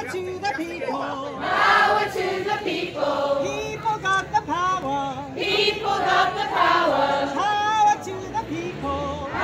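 A crowd singing together, a large mixed group of voices, with a guitar accompanying.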